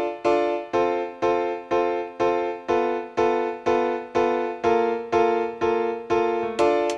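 Background music: a keyboard plays evenly repeated chords, about two a second, each struck note fading before the next.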